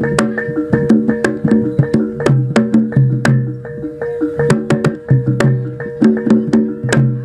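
Javanese jaranan (kuda lumping) gamelan music: tuned metal percussion playing a fast repeating pattern of notes, with sharp drum strokes over it.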